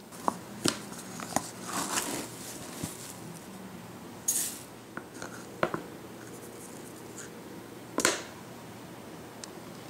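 Kitchen handling sounds: a glass bowl set down on a digital kitchen scale, and rolled oats tipped into it with short rustles. Scattered clicks and clinks, with the loudest knock about eight seconds in.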